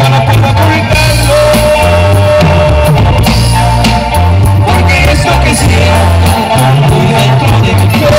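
Live band playing loud through a PA system, heard from out in the audience: bass, drums and guitars under a singing voice.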